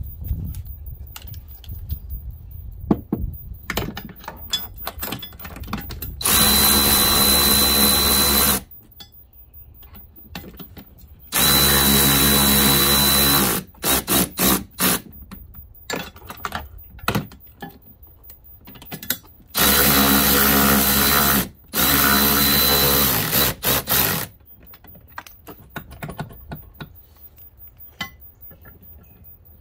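Milwaukee cordless ratchet running in four bursts of about two seconds each, driving hitch bolts through a golf cart's rear bumper. Short blips of the trigger follow the second and the last burst, with light clicks of tools and bolts in between.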